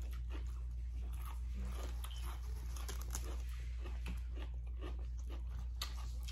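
Close-up eating sounds: chewing with short crisp crunches and mouth clicks scattered through, over a steady low hum.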